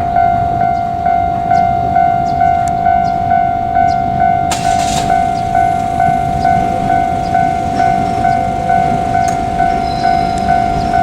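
Japanese level-crossing warning bell ringing steadily, about three dings a second, over a low rumble. A short hiss cuts in about four and a half seconds in.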